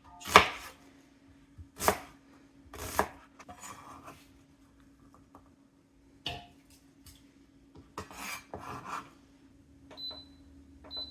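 Kitchen clatter: irregular knocks and clinks of dishes, utensils and food being handled on the counter, over a steady appliance hum. A couple of short high electronic beeps come near the end.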